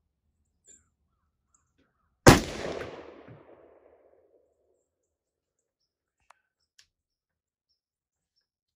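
A single .308 Winchester rifle shot from a Savage MSR 10, about two seconds in, its report echoing and dying away over about two seconds.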